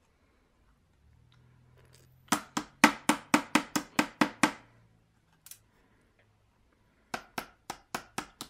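Sharp taps of a small hand tool chipping at the plaster block of a toy excavation kit: a quick run of about ten taps, a lone tap, then about six more near the end.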